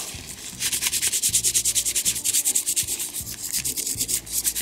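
Toothbrush bristles scrubbing a wet, soapy brass clock plate in quick, even back-and-forth strokes, several a second, working old oil and dirt off the clock movement's plate.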